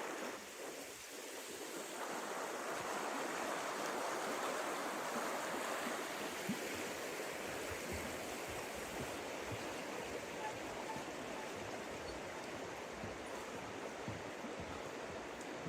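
Steady rush of flowing stream water, growing louder about two seconds in.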